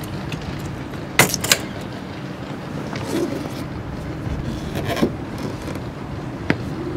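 Metal clicks and knocks from a sailboat's mast-mounted halyard winch and its winch handle as the jib halyard is slackened: a quick cluster of three about a second in, then two single clicks later. A steady low hum runs underneath.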